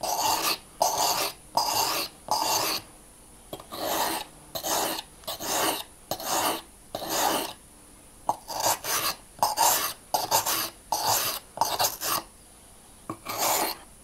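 Steel pocket-knife blade being sharpened on the coarse 150-grit side of a wet water stone: a run of scraping strokes, about two a second, with short pauses between sets. The blade is very blunt and is being reprofiled.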